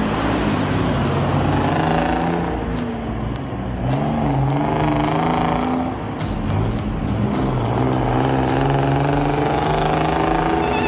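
Loaded logging truck's diesel engine running under load, its pitch rising and falling several times.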